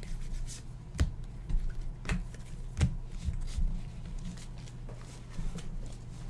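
Baseball trading cards being handled and sorted by hand: a soft rustle of cards with a few sharp taps as they are set down on stacks, three clear ones in the first three seconds and fainter ones after.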